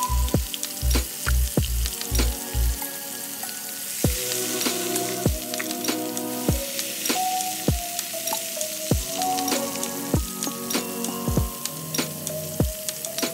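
Frozen okra deep-frying in hot oil in a saucepan: a steady, vigorous sizzle and crackle of bubbling oil. Background music with a steady beat plays under it.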